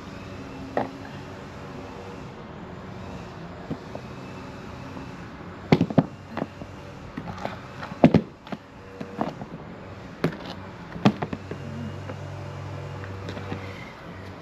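Sharp knocks and clacks from handling and tapping a clothes dryer's lint filter while it is cleaned, about half a dozen, bunched in the middle, over a steady background hum. A low steady drone comes in near the end.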